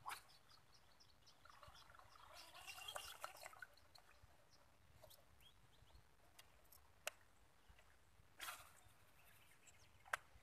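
Near silence: faint outdoor background with a quick run of ticks near the start, a couple of brief crackly patches, and two sharp single clicks later on.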